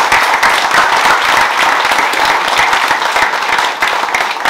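A roomful of wedding guests applauding: dense, steady clapping from many hands.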